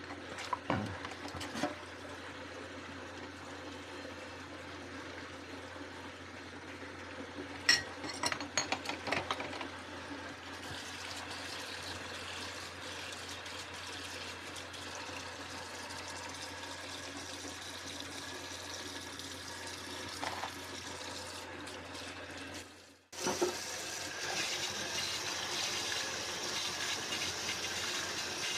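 Kitchen tap water running into a sink during hand dishwashing, with sharp clinks and knocks of dishes near the start and again around eight seconds in. A little past two-thirds through the water cuts out for a moment, then comes back louder and hissier.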